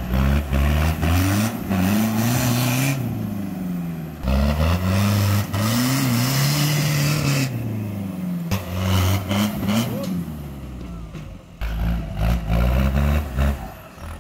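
Off-road 4x4 crawler's engine revving hard in repeated bursts of a few seconds, its pitch swinging up and down as it is driven up a steep dirt bank.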